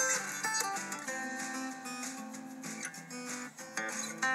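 Background music on acoustic guitar, with plucked notes and strums.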